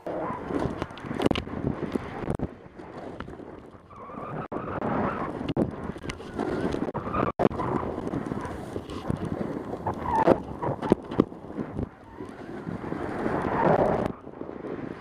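Burton T7 snowboard sliding and carving through powder snow: a continuous rushing hiss that swells with each turn, with wind buffeting the microphone and scattered sharp knocks. It drops off suddenly near the end.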